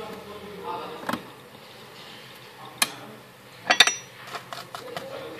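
Small hand tools tapped and set down on a repair bench: scattered sharp clicks, the loudest a clatter just under four seconds in, followed by a few light ticks.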